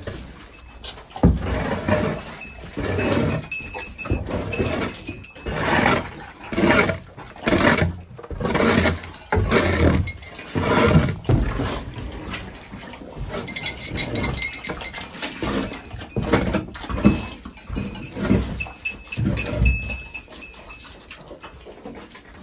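Barn livestock calling over and over, in short pitched calls that come about once a second.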